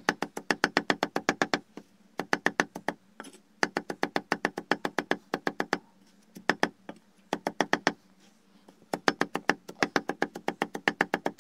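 Large knife chopping fast on a wooden log chopping block, mincing tirşik (snake arum) leaves: sharp knocks about six a second in runs of one to two seconds, with short pauses between.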